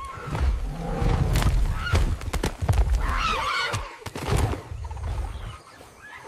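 Wild animal calls, high bending cries that come several times and are densest about three seconds in, over a steady low rumble.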